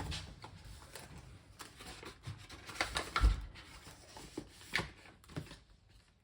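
Light handling sounds: scattered soft clicks and rustles, with one dull thump about three seconds in.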